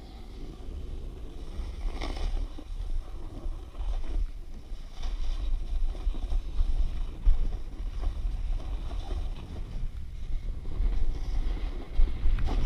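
Wind buffeting an action camera's microphone at speed while snowboarding downhill, a steady low rumble. Over it, the board's edge scrapes across packed snow in hissing surges every two to three seconds as it carves turns.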